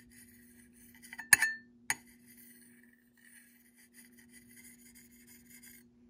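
Metal knife edge scraped across a dishwasher-etched drinking glass: two sharp clinks of metal on glass a little over a second in, the first the loudest with a brief ring, then a faint gritty rasp as the blade drags over the glass. The rasp is the roughness of the etched, pitted glass surface.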